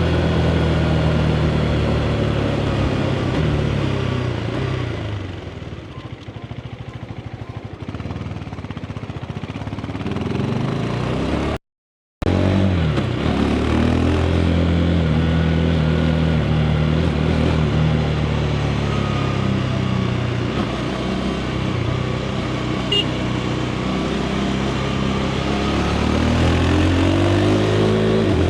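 KTM 390 Adventure's single-cylinder engine through its stock exhaust, heard while riding: it pulls steadily, then eases off and goes quieter for a few seconds before picking up again. The sound cuts out completely for a moment near the middle, then the engine holds a steady cruise and rises in pitch near the end as it accelerates.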